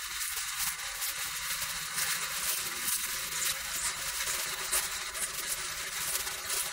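Small kitchen knife slicing through a red onion held in the hand: faint, crisp cuts over a steady hiss. The knife is blunt.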